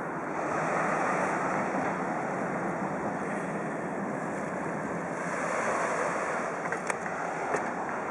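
Small waves washing against the rocks and concrete blocks of a breakwater, swelling twice, with wind buffeting the microphone.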